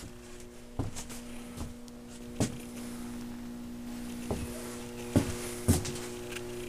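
Steady electrical mains hum from workshop equipment, several pitches stacked together, with about six light knocks and thumps scattered through it from footsteps and handling.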